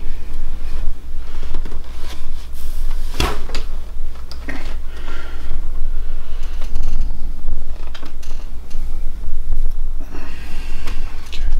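Wooden transfer board being handled and set down, with one sharp knock about three seconds in and a few lighter knocks later, over a steady low hum.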